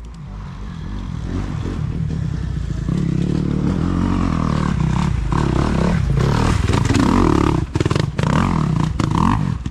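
Dirt bike engine revving, building up over the first few seconds and then held at high revs, with a few brief drops near the end.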